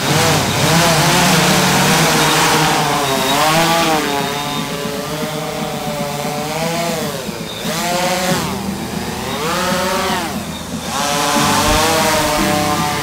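Eight-rotor (X8) heavy-lift FPV drone's motors and propellers spinning up for take-off, then buzzing as it lifts off and hovers. The pitch rises and falls again and again as the throttle changes.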